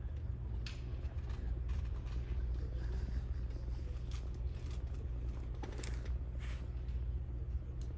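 Steady low hum of a large sports hall's room tone, with a few faint scattered knocks and rustles.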